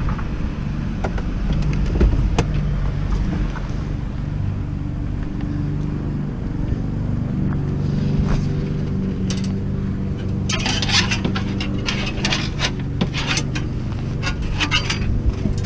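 Pickup truck engine running steadily. In the last five seconds or so, a rapid run of metal clinking and rattling.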